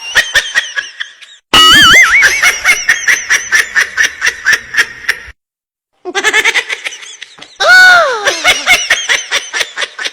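Comic edited-in sound effects with laughter: fast clicks under wobbling whistle-like tones, a sudden cut to silence about five seconds in, then a falling whistle-like tone near eight seconds.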